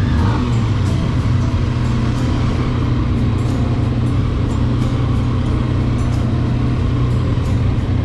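Triumph Tiger motorcycle's three-cylinder engine running steadily at low speed on a dirt road.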